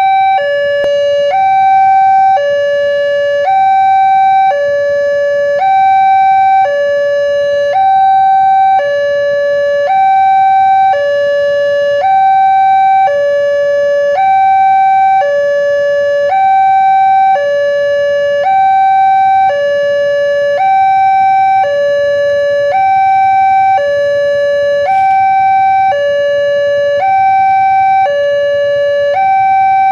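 Electronic level-crossing warning alarm at a railway barrier, sounding a steady two-tone high-low pattern. The tones alternate about once a second, the warning given while the crossing barriers are closed for a train.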